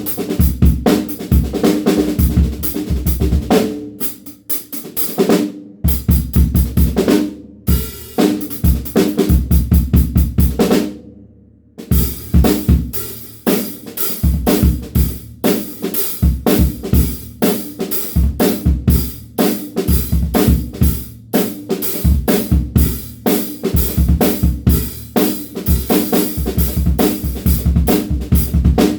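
DW Frequent Flyer drum kit played as a full kit: kick drum, snare, hi-hat and cymbals in grooves and fills, with a few short stops and a longer pause about eleven seconds in.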